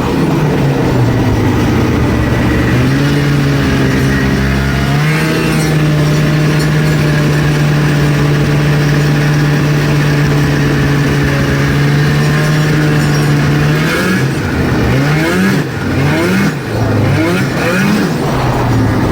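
Snowmobile engine running at a steady speed, then revved up and down quickly five or six times in a row near the end, after sitting idle for weeks in the snow.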